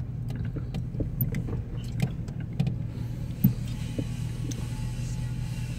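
Car cabin noise while driving slowly: a steady low engine and road hum, with scattered light clicks and one sharper click about three and a half seconds in.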